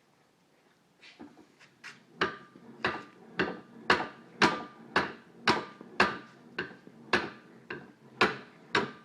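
A metal file drawn in repeated strokes along the edge of a scraper hook blade clamped in a vise, turning the hook over. The strokes start softly about a second in, come about two a second, and grow firmer, each a short scrape with a faint metallic ring.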